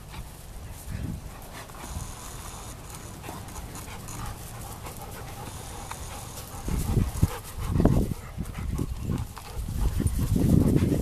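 A dog panting close by, getting louder in the last few seconds.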